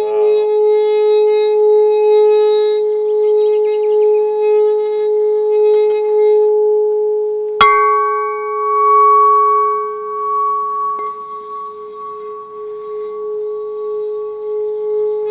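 Crystal singing bowl with water in it, sounding one steady, sustained tone with overtones. About halfway through a sharp knock sounds, and a higher ringing tone joins the hum from then on.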